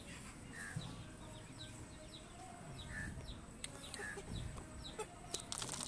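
Young fighting-breed chickens, about four months old, clucking softly, alongside a run of short, high, falling chirps about twice a second. A brief patch of clicking rustle comes near the end.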